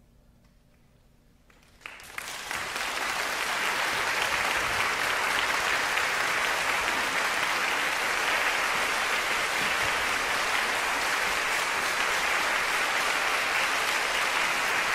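Near silence, then about two seconds in an audience breaks into applause that quickly builds and holds steady.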